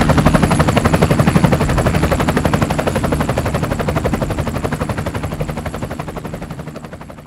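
Helicopter rotors chopping in a fast, even beat, from several helicopters passing overhead in formation, fading steadily as they move away.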